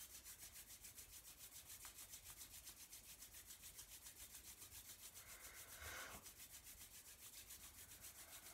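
Palms of the hands rubbed briskly together, a faint, fast, even swishing of about eight to ten strokes a second, with one slightly louder swish about six seconds in.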